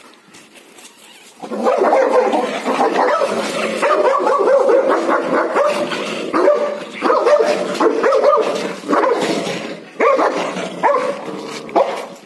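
A Labrador and a German shepherd barking at each other through a gate: a dense, continuous run of barks that starts suddenly about a second and a half in and breaks into separate barks near the end.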